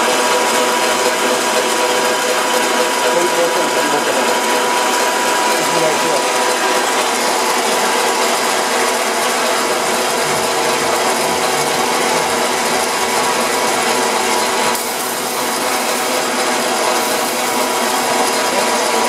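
Portable line boring machine running, a steady mechanical whirr of gearing with a steady whine over it, dipping slightly about three quarters of the way through.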